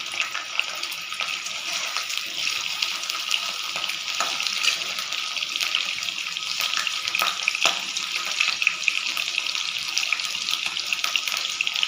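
Food frying in hot mustard oil in a pan: a steady sizzle with many small crackles and pops.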